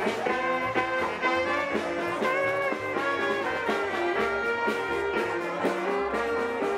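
Street brass band playing a tune: trombones, trumpet, saxophones and clarinet carry the melody over a bass line that moves in steps.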